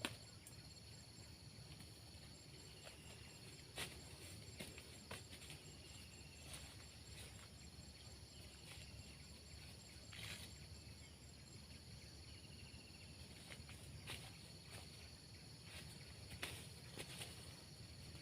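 Near silence: faint outdoor ambience with a steady high insect drone, a short faint chirp every few seconds, and a few soft clicks.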